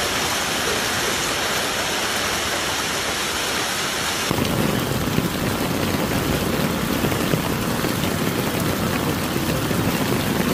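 Hailstorm with heavy rain pouring down: an even, steady hiss of falling hail and rain. About four seconds in it changes to a denser, deeper patter of hail and rain beating on pavement.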